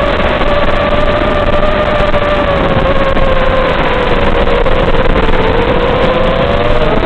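The brushless motors of a small 4S FPV racing quadcopter whine steadily in flight over a rough hiss. The pitch of the whine sags a little about five seconds in and climbs again near the end as the throttle changes.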